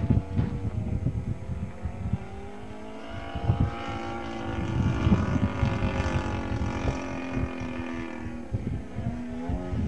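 Engine and propeller of a 30% scale Extra 260 radio-controlled aerobatic plane in flight, its pitch sliding down and back up as the plane passes and manoeuvres overhead. Gusts of wind rumble on the microphone at the start and near the end.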